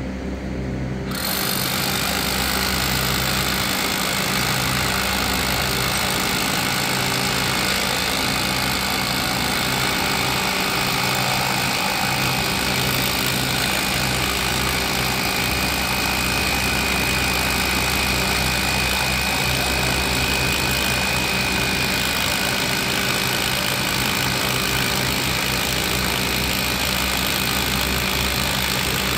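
A hand-held power tool at the base of a steel shoring beam starts about a second in and runs steadily and loudly throughout, over a low machine hum.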